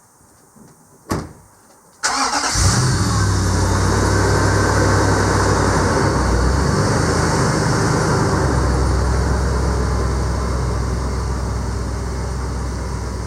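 A sharp knock about a second in, then a vehicle engine starts abruptly about two seconds in and keeps running steadily, its pitch shifting briefly before it settles into an idle.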